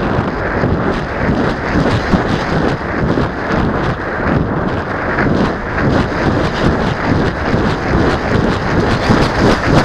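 Wind rushing over the microphone of a camera mounted on a gliding foam RC plane, a rough steady rush with uneven gusts; no motor tone is heard, so the plane is gliding with its motor off.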